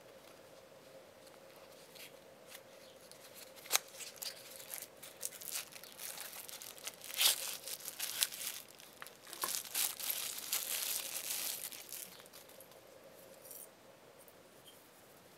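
Cardboard knife box being handled and the folding knife slid out of it and its wrapping: rustling, scraping and crinkling of cardboard and wrapping material. It starts as scattered clicks and taps, is busiest through the middle, and dies away near the end.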